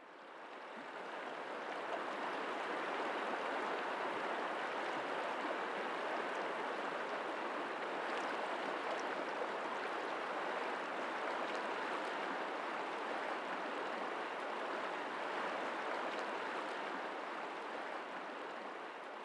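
Steady rush of flowing water, like a river or stream running over rocks, fading in over the first couple of seconds.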